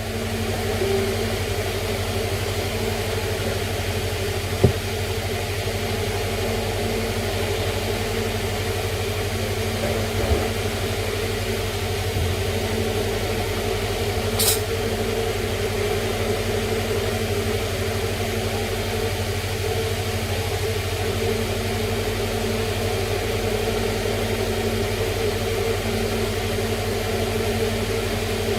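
Steady mechanical hum, like a motor or fan running, with a couple of faint clicks and a brief high blip about halfway through.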